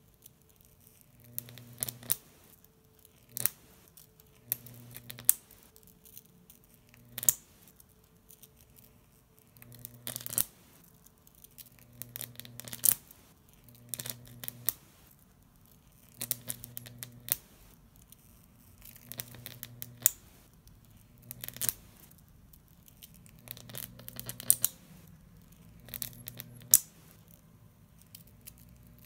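High-voltage arc of a homemade Jacob's ladder crackling and sizzling between two copper wires, fed by a MOSFET driver. Irregular sharp snaps sound every second or two as the arc breaks and strikes again, over a low hum that comes and goes.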